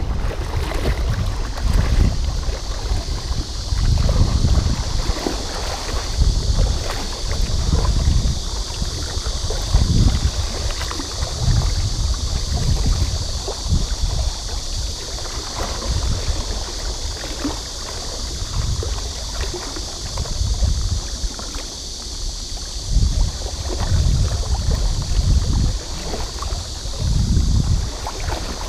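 Legs wading through shallow river water, a low swish and slosh with each stride, about one every one to two seconds.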